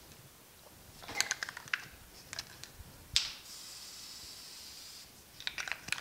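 Aerosol can of weld-through primer: a quick run of rattling clicks about a second in as the can is shaken, then a steady spraying hiss of about two seconds, and a few more clicks near the end.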